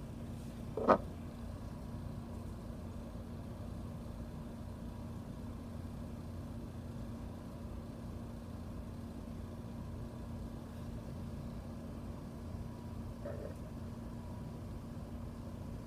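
Steady low electrical-sounding hum of room background noise, with one sharp click about a second in as the metal pen is picked up off the desk, and a fainter tick later as it is handled.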